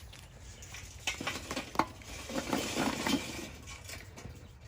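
Charcoal poured from a chimney starter into a Weber kettle grill: the pieces clatter and clink against each other and the metal, thickest in the middle and thinning out toward the end.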